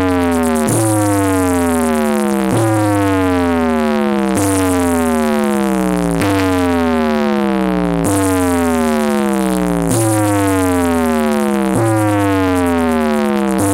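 Electronic dance remix played loud through a large DJ speaker rig of twelve mid and eight bass cabinets: a synth tone slides downward and restarts about every two seconds over a steady low bass.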